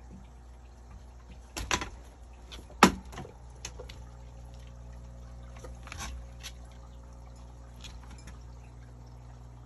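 A cat jumping down between wall shelves: a few knocks and thuds as it lands and brushes objects, the sharpest about three seconds in, over a steady low hum.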